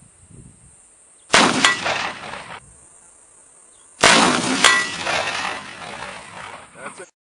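Two shots from muzzle-loading guns, about two and a half seconds apart, each with a long echoing tail. A short, sharp metallic ping follows each shot about a third of a second later.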